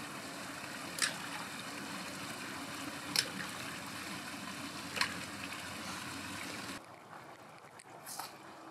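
Shallow creek water trickling over rocks, a steady rush with three short sharp ticks over it. It cuts off suddenly near the end, leaving a much quieter outdoor background.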